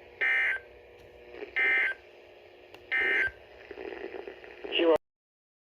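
Emergency Alert System end-of-message signal: three short bursts of SAME digital data tones, harsh warbling screeches about a second and a half apart, which mark the end of the alert. A short sound follows near the end, and then the audio cuts off.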